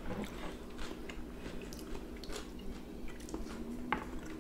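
Close-miked chewing and lip smacking from someone eating smoked mackerel: an irregular string of soft, wet clicks.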